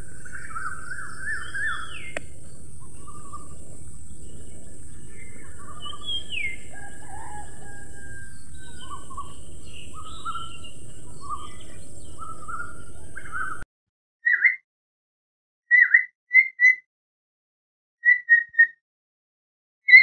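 A flock of budgerigars chirping and chattering over a steady background hiss. About two-thirds of the way through, the hiss cuts out suddenly and only short, separate chirps remain, one every second or two.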